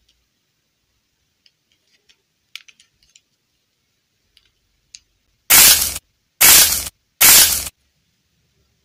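A few faint clicks and taps from a small plastic doll being handled, then three loud hissing bursts of about half a second each in quick succession, starting about five and a half seconds in.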